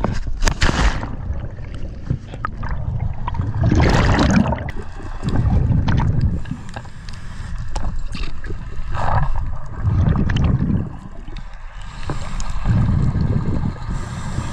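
A splash about half a second in, then a scuba diver's breathing heard underwater: regulator hiss on the inhale and bursts of exhaled bubbles gurgling and rumbling every few seconds.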